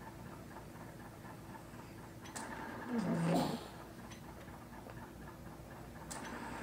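A home ventilator cycling: a click and a rush of air with a short low hum, repeating about every three and a half seconds, over faint ticking.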